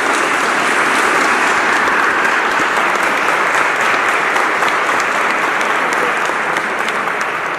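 Audience applauding steadily in a large stone church.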